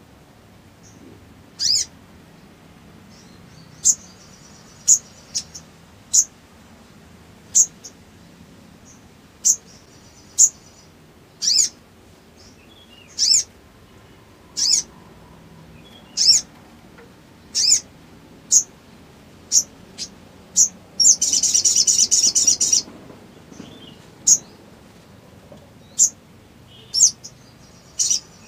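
Male olive-backed sunbird calling: short, sharp, high chirps about once a second. Roughly two-thirds of the way through it gives a louder, rapid trill lasting about two seconds.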